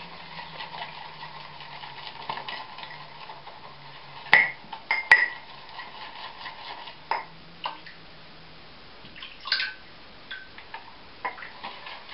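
Shaving brush swishing wet shaving cream lather, with a few sharp clinks and taps; the two loudest come about four and five seconds in.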